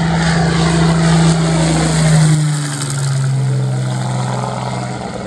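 Supermarine Spitfire's Rolls-Royce Merlin V12 engine running at take-off power as the fighter climbs out low overhead. Its note drops in pitch about two seconds in as it passes, then the sound eases as it goes away.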